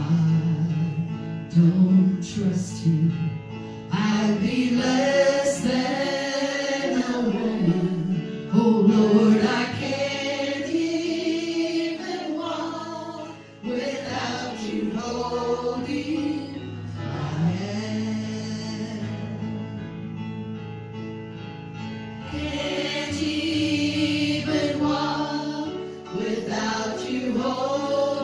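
Gospel singing with instrumental accompaniment, the voices holding long notes.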